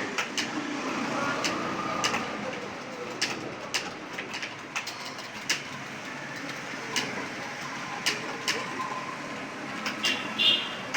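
Computer keyboard being typed on during a speed test: a quick, irregular run of key clicks, over steady room noise. A short chirping sound comes near the end.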